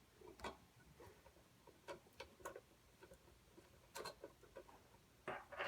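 Faint, irregular plastic clicks and taps from an old hardwired smoke detector base and its wiring harness being handled and taken down, with a louder clatter near the end.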